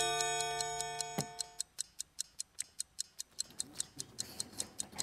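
Quiz-show countdown clock sound effect: even ticking, about five ticks a second, marking the team's discussion time running. A chiming signal tone that starts the timer rings out and fades over the first second and a half.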